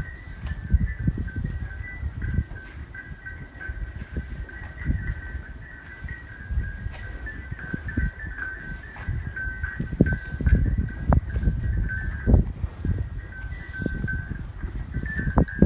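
Farm livestock moving about in a shed or pen, with uneven shuffling and scattered knocks and sharp clicks. A steady, warbling high-pitched tone runs throughout.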